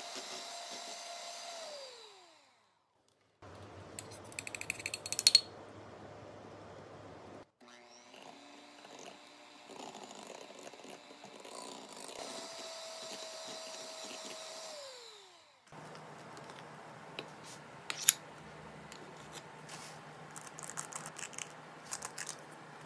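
Electric hand mixer whipping cream in a glass bowl, its motor whirring steadily and then winding down with a falling pitch, twice. Between and after the two runs there are scattered sharp clicks and taps, the loudest a clatter about four to five seconds in.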